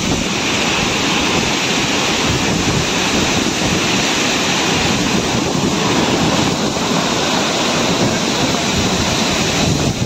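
Waterfall's steady rush of falling water, with wind buffeting the microphone.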